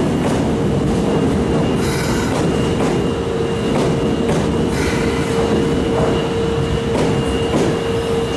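Osaka Metro Tanimachi Line subway train running at steady speed, with continuous rumble, a steady held whine and scattered clicks and knocks from the wheels and track.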